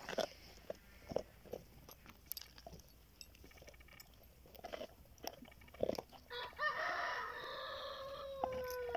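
Dog gnawing a bone, with scattered sharp cracks and crunches. About six seconds in, a rooster crows, one call of about two and a half seconds that drops in pitch at the end and is the loudest sound.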